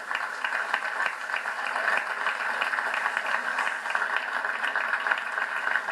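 An audience applauding steadily, a dense patter of many hands clapping, heard as played back through a computer's speakers.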